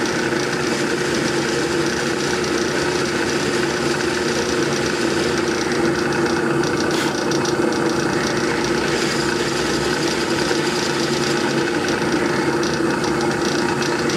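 Drill press running with a steady hum while a high-speed steel twist bit is fed slowly into the end of a turned wooden handle.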